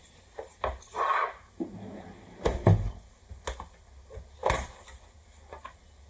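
Hand tools and a plastic screwdriver case being handled on a desk mat: a series of clicks and knocks with a short rustle about a second in, the loudest a heavier thump about two and a half seconds in.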